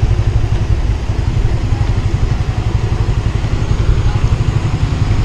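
Small motor scooter's engine running as it is ridden along a road, under a steady low rumble of wind on the microphone.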